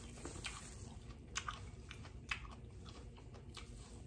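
A person chewing crunchy raw produce, with several sharp crunches as the bites break.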